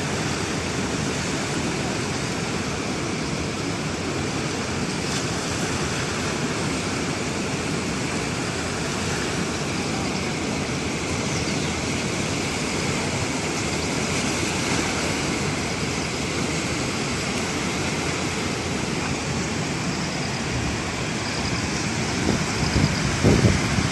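Floodwater rushing, a steady wash of noise, with a few louder low thumps near the end.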